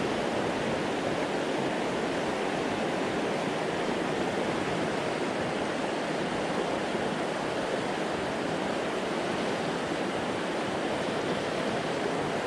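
Fast, high river rushing steadily over rapids and rocks, an even unbroken roar of water.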